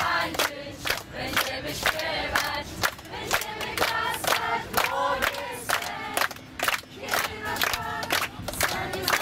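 A group of young people singing and chanting together in unison, with steady rhythmic hand clapping about three times a second.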